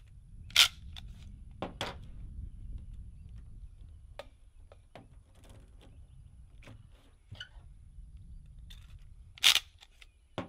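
Plastic ETS CAM magazine loader clacking as it strips pistol cartridges from a plastic ammo tray and presses them into an MP5 magazine: sharp clacks about half a second in and near the end, with smaller clicks of cartridges and plastic in between, over a low rumble.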